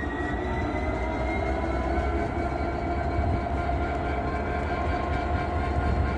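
Class 66 diesel locomotive's two-stroke V12 diesel engine running while the locomotive stands still: a steady hum with a low rumble and a whine that rises slightly in pitch over the first couple of seconds.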